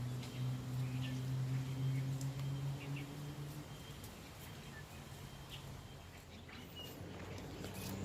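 Outdoor ambience: a steady low hum that fades away about a third of the way in, with faint, short high chirps and a few light clicks.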